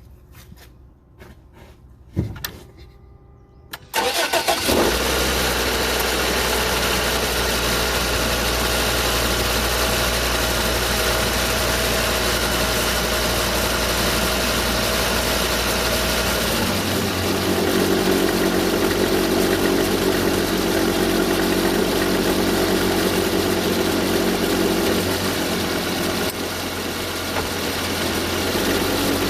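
A 2015 Volvo XC60 T5 cranks and starts from cold after a few clicks, then runs at a steady fast idle. About 17 seconds in the engine note drops and a deeper grinding noise comes in and carries on.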